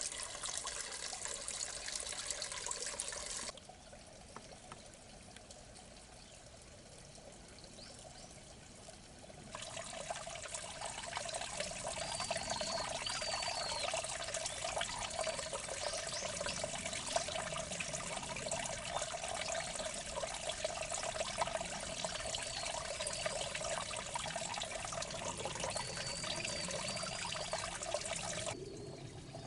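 Water trickling and pouring steadily in a small irrigation ditch. It drops abruptly to a quieter stretch a few seconds in and comes back several seconds later, with a few short high chirps over it.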